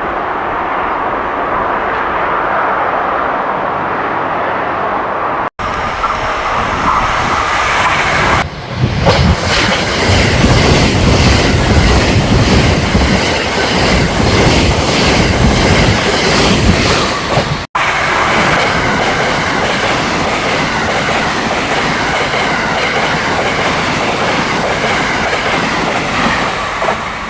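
A container freight train's wagons rolling past with steady running noise, then after a cut a 12-car JR West 683-series electric express train passing at speed, its wheels clattering rhythmically over rail joints, loudest for several seconds in the middle.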